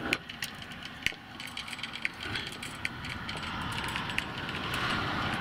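Sailing boat's rigging fittings clicking and rattling irregularly while under way, over a steady rushing noise that grows louder near the end.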